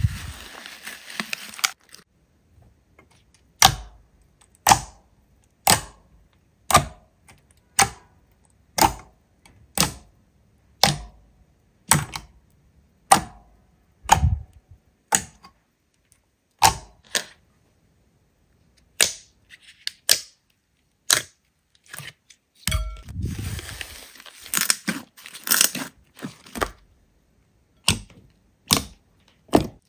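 Slime being worked by hand, giving a sharp pop about once a second, with a stretch of crackling about 23 seconds in.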